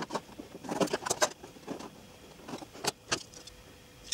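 A handful of light clicks and taps from a metal ruler and marking tool being handled against a carbon fibre boat hull while cut lines are measured. The taps come in small clusters, around one second in and again around three seconds in.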